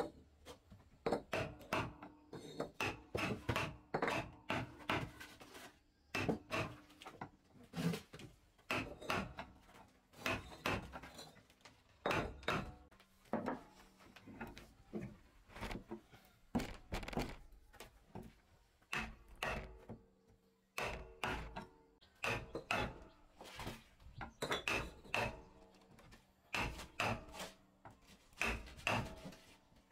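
Irregular series of sharp wooden knocks from a chisel being struck into a wooden board to cut out a circle, mixed with the clack of hollow clay bricks being set in place.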